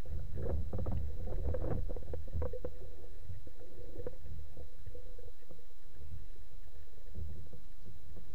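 Underwater sound through a speargun-mounted camera: a steady low rumble of water moving past the housing, with a flurry of bubbly clicks and crackles in the first two or three seconds as the freediver goes under, then only a few scattered clicks.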